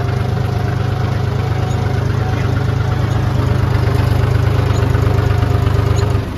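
Tractor's diesel engine running steadily, heard close from the driver's seat, a dense low rumble with fast even pulsing. The sound drops suddenly near the end.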